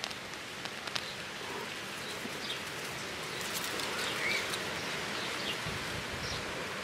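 Garden ambience: a steady, even hiss with a few faint bird chirps and some soft clicks.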